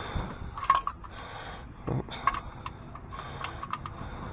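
Scattered light clicks and knocks of tools and parts being handled during engine work, with a low thump about two seconds in and a quick run of clicks after it.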